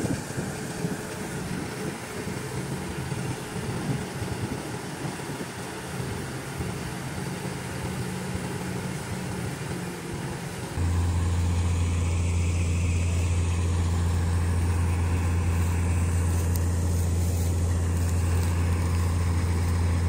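Combine harvester's engine running steadily as it unloads threshed wheat grain through its auger. About eleven seconds in, the sound turns louder, with a strong steady low hum.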